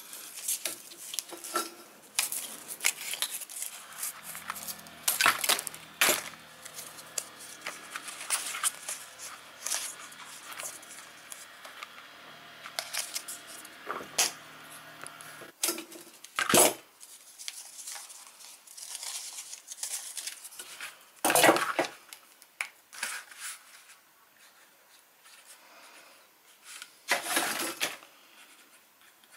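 Scissors snipping through white plastic window-blind slats, with the slats clicking and clattering against each other as they are handled; a few sharper knocks stand out.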